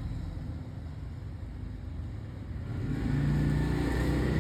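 A motor vehicle engine running nearby, a low rumble that grows louder about three seconds in.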